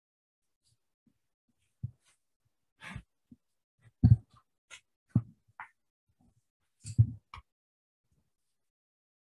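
Handling noise close to the microphone: about five soft thumps with brief rustles at irregular intervals, as hair and clothing are touched.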